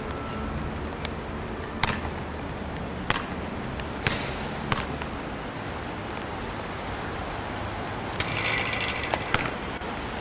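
A basketball being shot and bounced: sharp single knocks of the ball on the backboard, rim and pavement, with a short rattling burst near the end.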